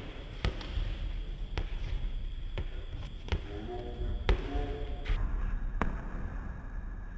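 A basketball being dribbled on a hard court, with a sharp bounce about once a second.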